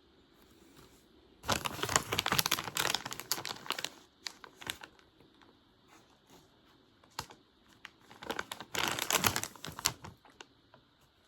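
Typing on a keyboard: two quick runs of keystrokes, the first lasting about two and a half seconds, the second about two seconds near the end, with a few single key taps in the pause between.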